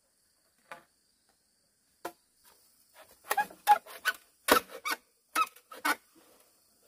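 A series of sharp knocks of a hand tool on bamboo, about a dozen strikes. Two single knocks come first, then a quick cluster of blows in the second half.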